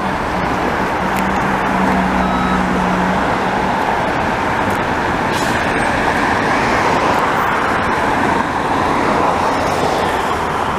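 Steady highway traffic noise, a constant wash of passing cars and trucks, with a low engine hum for the first few seconds.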